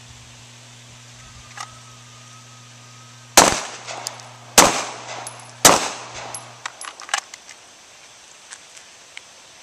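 Springfield Armory XD pistol fired three times, about a second apart, each shot sharp and loud with a ringing tail, followed by several fainter sharp cracks. A low steady hum runs underneath and stops shortly after the shots.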